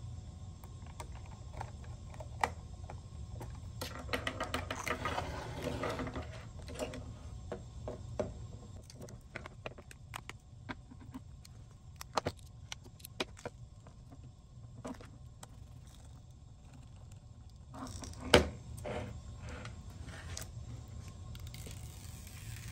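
Scattered light clicks and taps of a precision screwdriver and small parts during an iPhone 12 screen repair, over a low steady hum. A denser rattle about four seconds in lasts a couple of seconds, and a single sharper knock comes about eighteen seconds in.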